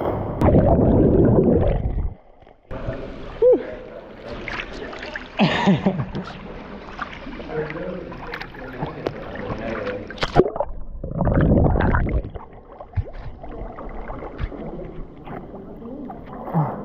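A person jumping from height lands in deep water with a loud splash, followed by water sloshing and gurgling around a camera at the surface, with another loud burst of splashing about eleven seconds in.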